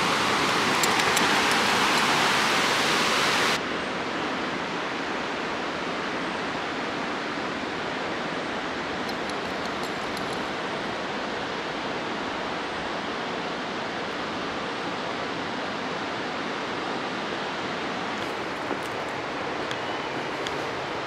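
Steady rush of river water below a weir. For the first three or so seconds it is closer and brighter, with splashing at the water's edge, then it cuts suddenly to a softer, even rush.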